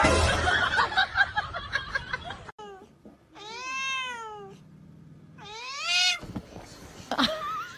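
Domestic cat meowing: two long, drawn-out meows that rise and fall in pitch, about three and a half and six seconds in, with a shorter call near the end. A loud jumble of noise fills the first two seconds or so.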